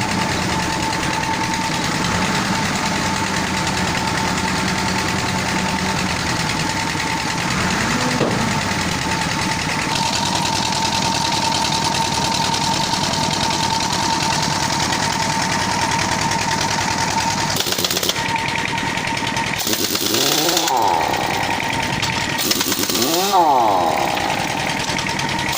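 A machine running steadily with a high, even whine over a rough mechanical noise. Near the end its pitch sweeps up and back down twice.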